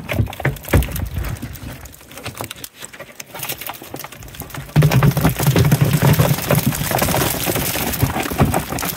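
Live channel catfish flopping in a wire net and on the boat: a run of separate knocks and rattles. About halfway through it turns suddenly into a louder, continuous thrashing clatter.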